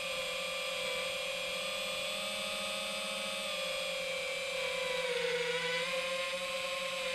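Whine of an FPV quadcopter's T-Motor Velox V2207 2550KV brushless motors and propellers in flight. The pitch is steady, sags briefly about five seconds in as the throttle eases, then climbs back.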